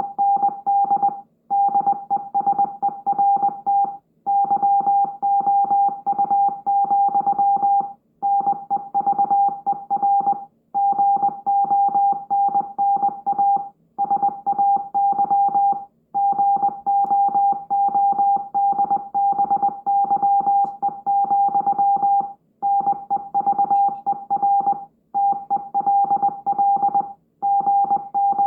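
Morse code: a single beep tone keyed on and off in rapid dots and dashes, with short pauses every few seconds.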